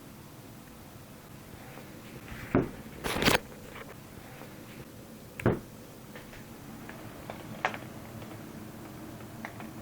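Handling sounds: a sharp knock, then a short scrape about three seconds in, another knock about five and a half seconds in, and a few faint clicks, over a low steady hum.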